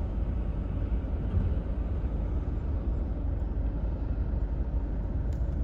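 Diesel engine of a Mitsubishi Pajero running, a steady low rumble heard from inside the cabin.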